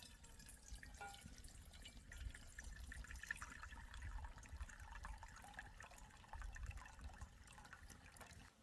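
Faint water trickling and dripping, with light scattered clicks.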